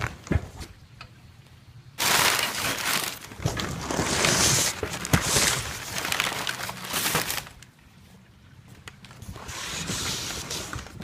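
Cardboard and plastic packaging of a guitar box being handled, rustling and crinkling with a few knocks. The noise is loudest from about two seconds in to about seven seconds, pauses briefly, then picks up again near the end.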